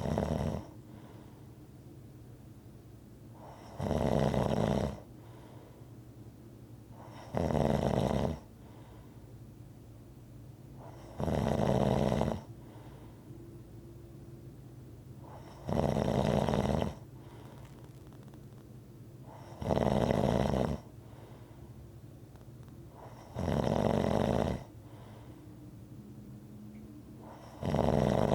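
Rhythmic snoring: loud snores about a second long, coming evenly about every four seconds, with a faint steady hum between them.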